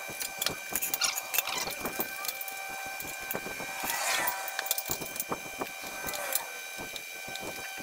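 Scattered light metallic clinks and rattles of steel shop-crane parts and hardware being handled and fitted together during assembly.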